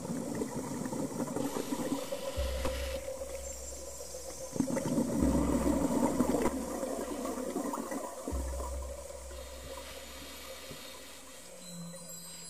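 Scuba diver breathing through a regulator underwater: rushes of exhaled bubbles coming every few seconds with quieter spells between, loudest near the middle.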